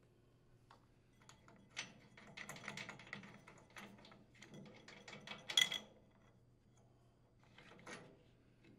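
Light clicks and metal rattles as a Briggs & Stratton engine's metal starter cup is slid off the flywheel shaft and handled, with a sharper clink about five and a half seconds in.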